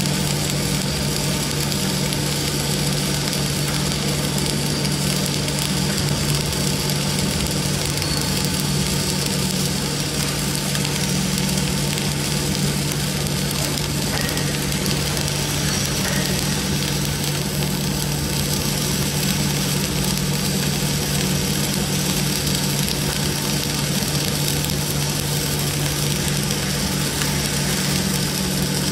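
Electric welding arc crackling and hissing steadily as a continuous bead is run on steel plate, over a steady low hum.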